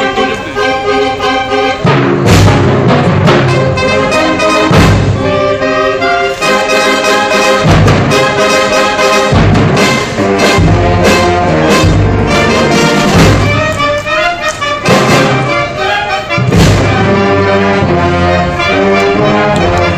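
Symphonic wind band playing live: clarinets, saxophones and brass including tuba in full sustained chords, punctuated by loud percussion hits every few seconds.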